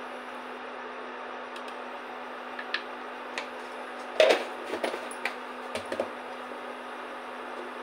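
A few light clicks and taps of a small plastic measuring spoon against a steel pan as garam masala is sprinkled in, the loudest a little over four seconds in. Under them runs the steady hum of an induction cooktop.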